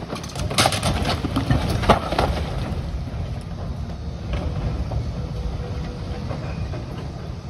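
Excavator tearing into a building's roof: a burst of cracking and crashing debris lasting about two and a half seconds, with a few weaker cracks later. Under it runs the excavator's steady low diesel engine rumble.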